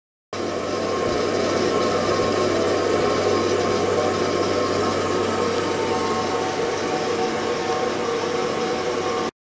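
Water-filled ultrasonic tank in operation with its liquid circulating: a steady hiss with a low hum and a few faint steady tones. It cuts in abruptly just after the start and cuts off abruptly near the end.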